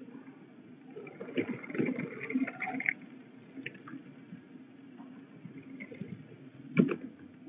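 Young peregrine falcons flapping their wings and scrambling on a wet wooden nest ledge. An irregular flurry of wingbeats and scuffing starts about a second in and lasts about two seconds, and a sharp knock comes near the end.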